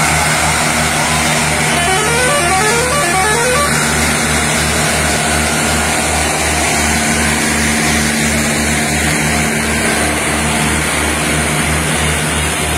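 Hindustan tractor diesel engine pulling a heavily loaded sugarcane trolley train, running at low revs with a steady, deep beat about three times a second. About two seconds in, a short run of rising horn notes plays briefly.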